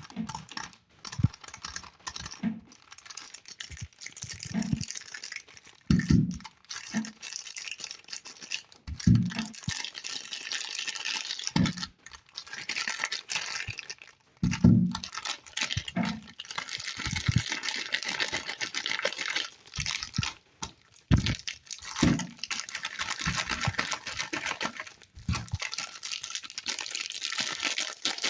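Soap bars being unwrapped by hand: wrapping crinkling, rustling and tearing, with soft thumps every second or two as bars and packaging are handled and set down.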